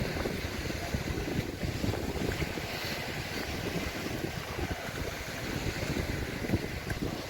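Wind buffeting the microphone in uneven gusts over a steady wash of sea waves on the beach.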